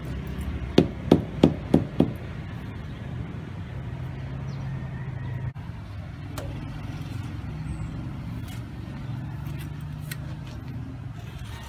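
Rubber mallet knocking an AAC lightweight concrete block into place: five quick knocks, about a third of a second apart, in the first couple of seconds. A steady low rumble runs underneath.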